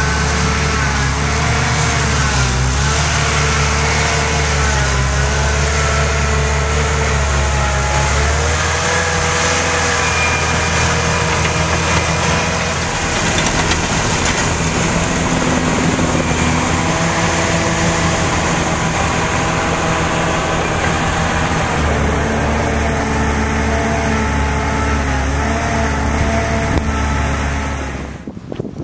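Diesel engine of a tracked loader running hard as it pushes sand into a berm, its pitch rising and falling with the load, over a steady low hum.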